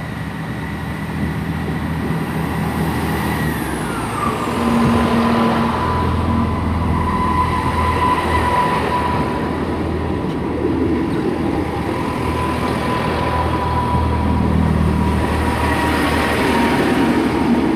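A pair of Class 158 diesel multiple units pulling out and passing close by under power: a steady diesel engine drone with a high whine that drops in pitch about three and a half seconds in, then holds steady.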